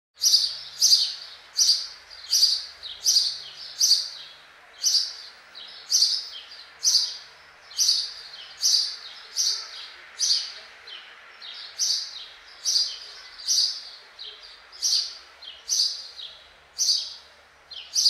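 A sparrow chirping: a steady series of short, sharp chirps, about two a second.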